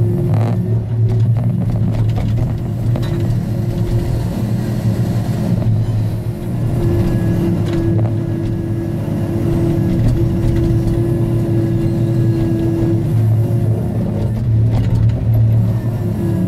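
Diesel engine of a log-loading forestry machine running steadily under load as its hydraulic boom and grapple handle logs, with a higher steady whine that comes and goes and is strongest in the middle.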